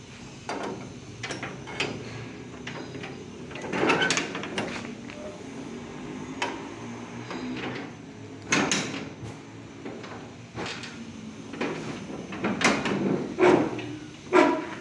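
Rear doors of an Isuzu Elf's steel cargo box being unlatched and swung open: a series of metallic clanks and rattles from the locking-bar handles and hinged doors, loudest about four seconds in and again in a cluster near the end.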